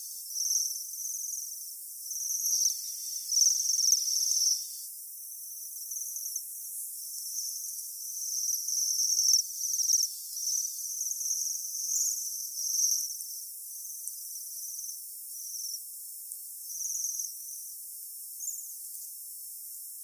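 Japanese waxwings calling: a run of thin, very high trilled notes, each lasting about half a second to a second, often overlapping, loudest about three to four seconds in.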